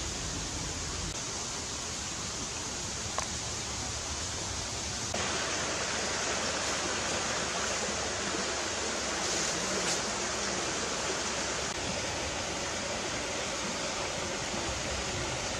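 Steady rushing outdoor background noise, its tone changing abruptly about five seconds in, with one faint click about three seconds in.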